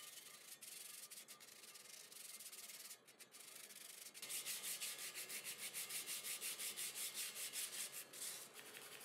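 Sandpaper on a round rubber sanding block rubbed by hand over cured Bondo body filler at the joint of a steel tube leg and its plate: faint scratchy rubbing at first, then from about four seconds in, quick back-and-forth strokes, about five or six a second, until near the end.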